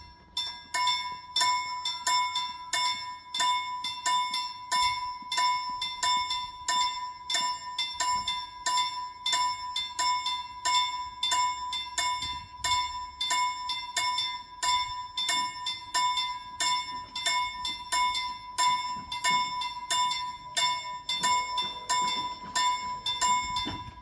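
Railway level-crossing warning bell ringing in rapid, even strokes, several a second, each with a clear ringing tone. It starts suddenly and stops near the end, once the barriers are down. It signals an approaching train.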